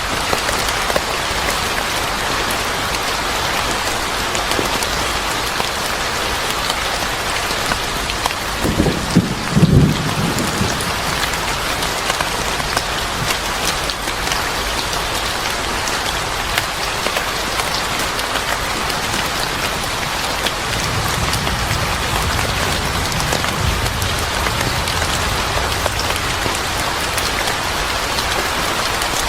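Steady rain pattering on a surface. About nine seconds in comes a brief, louder low rumble of thunder, and a fainter low rumble follows past the twenty-second mark.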